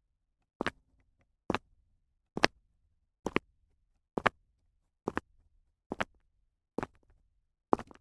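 Sharp taps repeated evenly, about one a second, each a quick double click.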